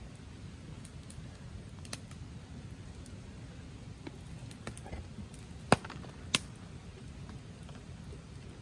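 Log campfire burning, with scattered sharp crackles and pops over a steady low rumble; two loud pops a little past halfway.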